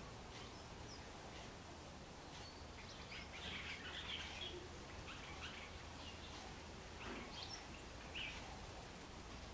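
Faint, scattered short bird chirps and calls, thickest about three to four seconds in and again near the end, over a low steady background rumble.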